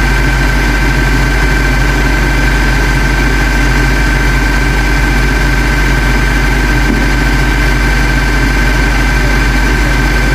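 Truck engine running steadily: a loud, unchanging deep rumble with a thin steady whine above it.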